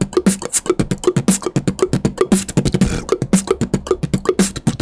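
Mouth beatboxing: the water-pouring effect built from a click roll of quick tongue clicks, with kicks and mouth ticks mixed in. It runs as a fast, even stream of clicks and pops, about eight to ten a second, each with a short bloop-like pitch.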